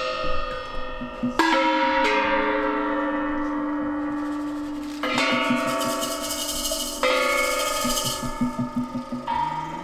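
Hanging gongs struck with a mallet three times, about a second and a half in, at five seconds and at seven seconds. Each stroke rings on in long, slowly fading, overlapping tones, and quick light taps run beneath the ringing in the second half.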